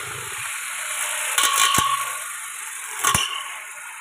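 Steady high hiss with two sharp metallic clatters, one about a second and a half in and one near three seconds, from a brush cutter being handled.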